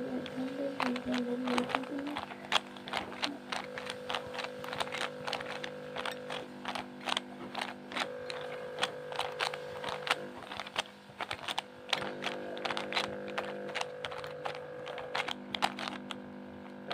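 Stickerless plastic 3x3 speed cube being turned rapidly by hand: a fast, irregular run of sharp plastic clicks as the layers snap round.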